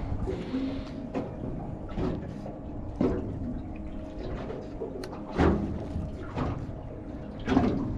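Small boat on the water: a steady low rumble broken by about five irregular knocks and water slaps against the hull.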